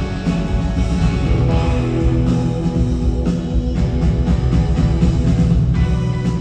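Live rock band playing, recorded from the audience in an arena: guitars and bass over a steady drum beat.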